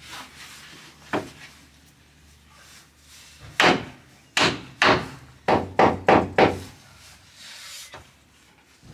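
A large 12 mm plywood floor sheet being shifted and knocked down into place over the van's metal floor: one wooden knock, then a quick run of seven loud bangs and thuds about halfway through.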